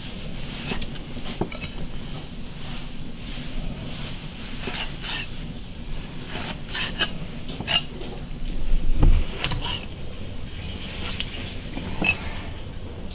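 Cleaver slicing boiled cured pork belly into strips on a thick wooden chopping block: a run of irregular sharp knocks as the blade cuts through and meets the wood, with one heavier low thump about nine seconds in.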